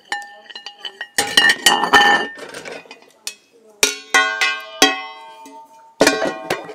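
Stainless steel cooking pots clanking against each other and the stovetop, a run of sharp metallic clangs, each left ringing like a bell.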